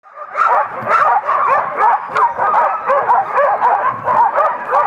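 A harnessed sled-dog team barking and yipping all at once, many dogs yelping over each other in a steady din, starting abruptly. The dogs are in harness and held in place, the excited clamour of a team waiting to be let go.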